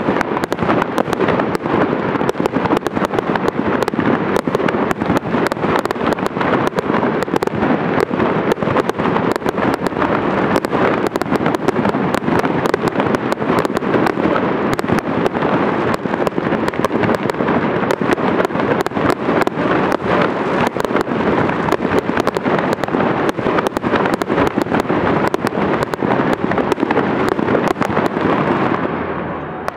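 Fireworks display in full barrage: a dense, continuous stream of bangs and crackles, many per second, with no pause.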